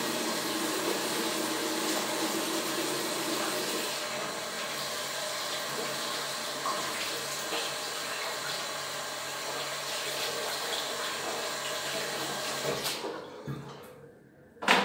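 Water running steadily from a tap into a sink while hands are washed. The flow stops about 13 seconds in, and a single short knock follows near the end.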